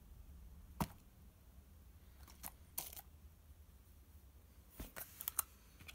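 Faint, scattered clicks and crackles from melted, runny slime being handled and tipped in its container, about a dozen small pops in all, bunched toward the middle and the end.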